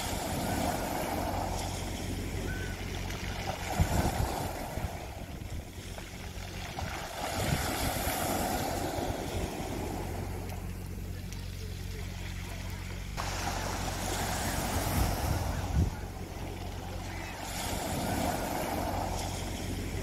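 Small sea waves washing in on a pebble beach, swelling and fading every few seconds, with a brief clatter of pebbles at some of the surges. A steady low mechanical hum runs underneath.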